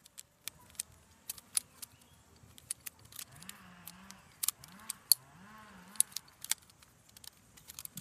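Homemade popsicle-stick butterfly knife flipped by hand: the wooden handles and blade clack against each other in a run of sharp, irregular clicks.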